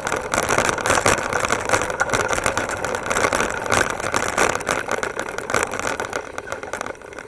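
Electric bike rolling over bumpy grass, its frame and the handlebar camera mount rattling and knocking continuously under the rush of riding noise, easing off near the end.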